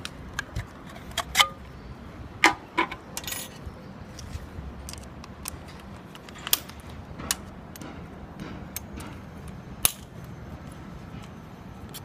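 Scattered sharp metallic clicks and clinks of a hex key and small toothed saw blade being handled and fitted to a Makita DSD180 cordless drywall saw, the loudest about a second and a half and two and a half seconds in, with a few more spread out later. A faint low rumble sits underneath.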